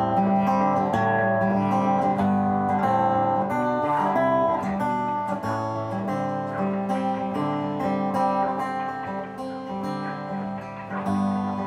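Solo acoustic guitar played live: an instrumental passage of plucked notes over sustained bass notes, with no singing.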